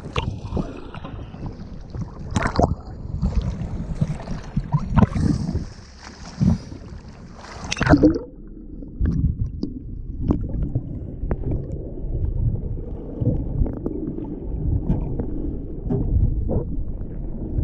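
Sea water splashing and sloshing around a GoPro at the ocean surface, with a few sharp splashes. About eight seconds in the sound turns muffled and low, with gurgling and dull thumps, as the camera goes underwater.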